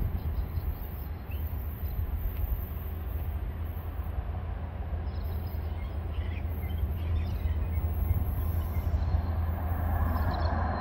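Diesel locomotive engine rumbling low and steadily as the train approaches, slowly growing louder, with a few faint bird chirps.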